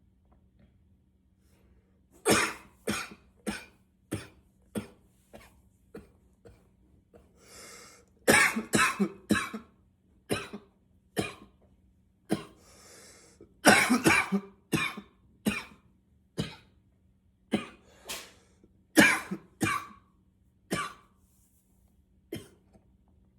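A man in a coughing fit: repeated hard coughs, some single and some in quick runs of several, with a drawn breath in two of the pauses.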